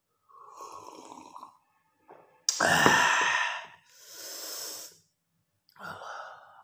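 A man gulping tea from a glass, then a loud open-mouthed exhale, like a satisfied 'ahh' or sigh, about two and a half seconds in. A softer breath out follows a second later, and there is a short mouth sound near the end.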